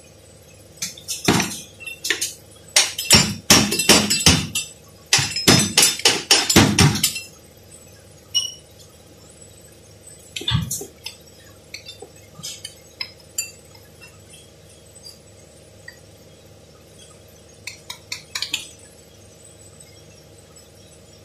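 Metal tools clinking and knocking against a vehicle's transmission and its bolts: dense clusters of sharp clinks through the first seven seconds, then scattered single clinks, over a low steady hum.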